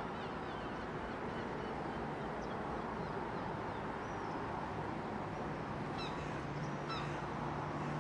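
Outdoor ambience: steady background noise with small birds chirping and a couple of short bird calls about six and seven seconds in. A low steady hum comes in around the same time.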